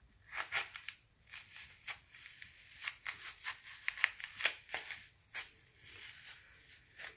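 Knife cutting through a raw, juicy apple: an irregular run of short, crisp crunches and scrapes.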